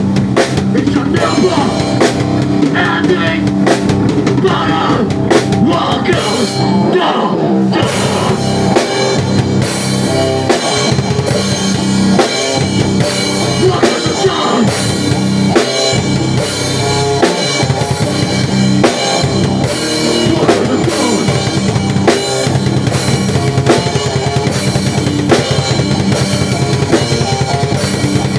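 A band playing live in a garage, driven by a drum kit with bass drum and snare hits throughout, over steady held low notes from the other instruments.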